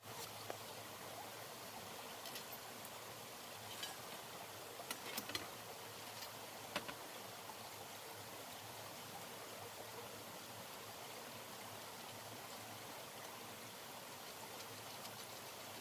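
Faint, steady rush of running water, with a few light clicks and taps between about four and seven seconds in.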